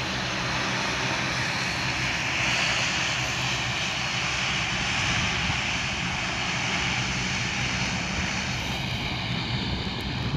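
Bombardier Dash 8 Q400's twin Pratt & Whitney PW150A turboprops running as the aircraft moves along the runway. A steady drone with a low propeller hum under a broad hiss, holding an even level.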